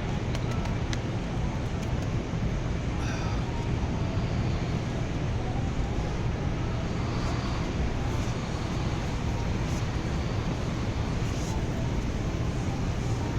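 Steady low rumbling background noise with a constant hum and a few faint clicks.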